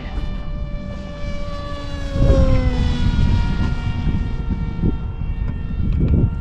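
Electric motor and propeller of an RC Fleet Sonic Wing pusher flying wing making a low pass. Its whine drops in pitch over the first few seconds as it goes by, then holds steady. Wind buffets the microphone from about two seconds in.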